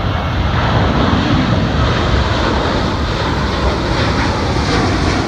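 Airport ambience: the steady rumble of aircraft engines.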